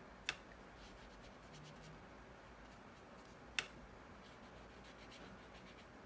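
Quiet tabletop sounds of brush painting: two sharp clicks about three seconds apart, with faint scratchy brush strokes between and after them.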